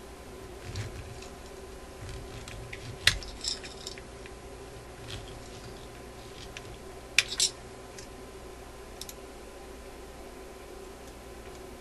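A screwdriver and fingers working on the metal parts of a jukebox's Tormat selector, making small clicks and taps: a sharp click about three seconds in and two more close together about seven seconds in, over a steady low hum.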